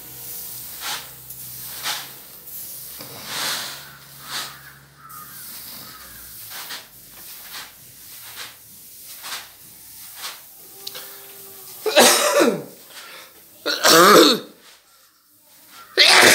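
A person coughing hard three times in the last few seconds, after a stretch of soft, repeated rustles and scuffs.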